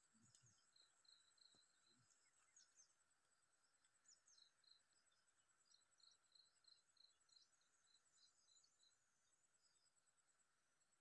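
Near silence: faint outdoor ambience of a steady high insect trill with repeated short high chirps, and a few soft knocks in the first two seconds.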